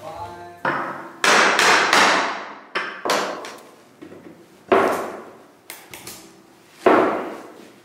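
Mallet knocking walnut chair parts together to seat a joint: about eight hard knocks at uneven spacing, several in quick succession near the start, each with a ringing tail.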